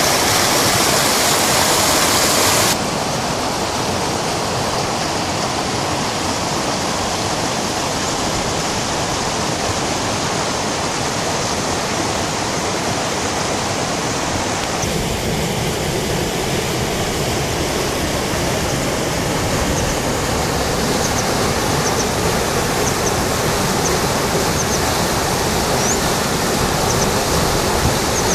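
Water rushing steadily out of a small dam's spillway and churning into the pool below. The rushing changes abruptly twice, at about three and about fifteen seconds.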